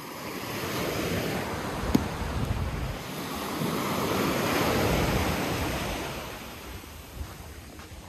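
Small waves breaking and washing up on a sandy beach, the surf swelling twice, the second time louder, with wind buffeting the microphone. A single brief knock sounds about two seconds in.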